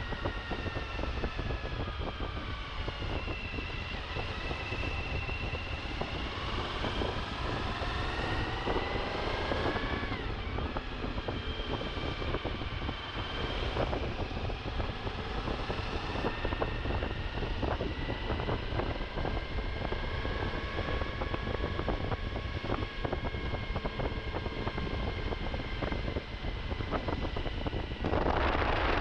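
Suzuki V-Strom's V-twin engine running as the motorcycle is ridden, its pitch rising and falling with the throttle and dropping sharply a couple of times, under heavy wind rumble on the microphone. Near the end a louder rush of wind noise sets in.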